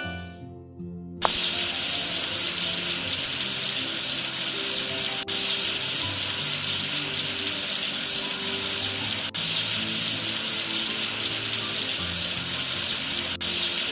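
Steady hissing noise, like spraying or sizzling, starting about a second in and briefly dropping out about every four seconds, over soft background music.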